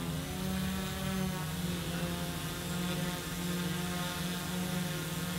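3D-printed quadcopter hovering, its four electric motors and propellers making a steady, pitched buzzing hum.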